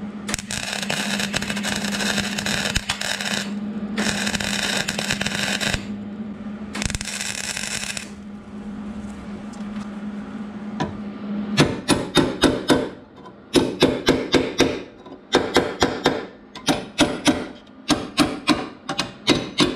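Hobart MIG 140 flux-core welder laying a plug weld into sheet steel over a thick bracket: three spells of crackling arc in the first eight seconds over a steady hum. From about halfway, quick ringing hammer blows on the metal come in short runs of several strikes, about four a second.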